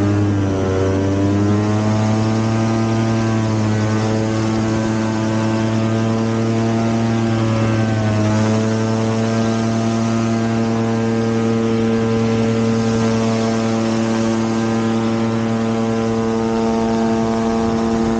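Rotax engine and pusher propeller of a Dominator gyroplane running hard and steady. The engine pitch wavers just after the start and dips briefly about eight seconds in, then holds.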